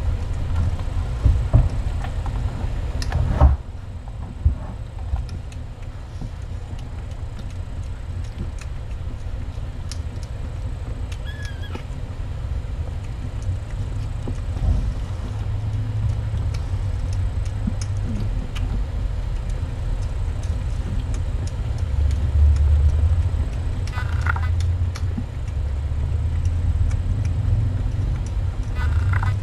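A low steady rumble, with a few brief high mews from newborn kittens, one about a third of the way in and two more near the end.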